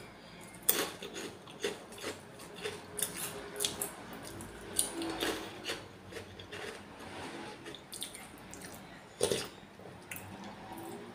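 Close-up eating sounds: chewing and mouth noises, with a metal spoon clinking and scraping in a bowl of meatball soup. Irregular short clicks and knocks throughout, the sharpest about a second in and near the end.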